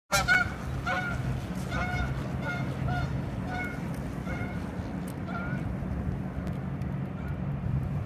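A flock of Canada geese honking as they fly over, about ten short calls at irregular intervals that stop about two-thirds of the way through, over a steady low rumble.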